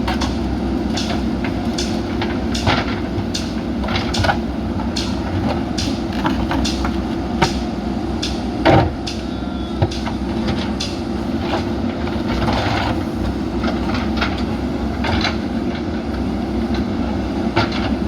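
JCB backhoe loader's diesel engine running steadily under load, with repeated sharp clanks and knocks as it works heavy concrete slabs. The loudest knock comes about nine seconds in.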